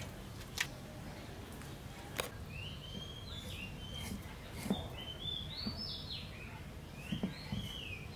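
A bird singing phrases of quick chirps that step up in pitch, over a few short knocks of a cleaver chopping chicken gizzards on a wooden board.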